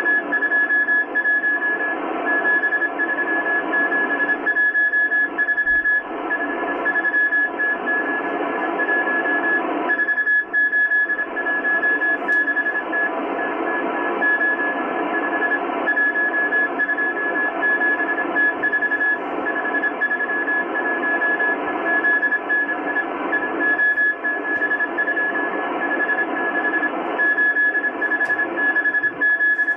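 Shortwave Morse code from the M12 Russian spy station on 14951 kHz, played through a Kenwood R-1000 receiver: a single high tone keyed on and off in dots and dashes over a steady band of static hiss.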